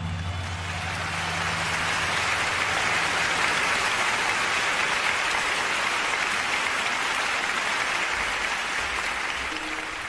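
Large crowd applauding, a steady dense clapping that fades out near the end.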